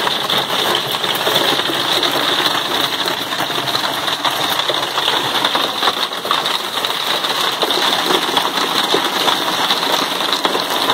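Hail and heavy rain pelting a motorhome's roof and windows: a loud, dense, unbroken clatter of small impacts.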